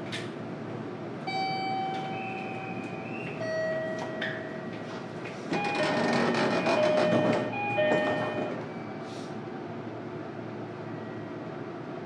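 JR Kyushu 305-series electric train heard from inside the car as it pulls away: a short knock as the doors shut, then the inverter's steady whining tones stepping to new pitches as it accelerates. About eight seconds in the tones stop, leaving even running noise.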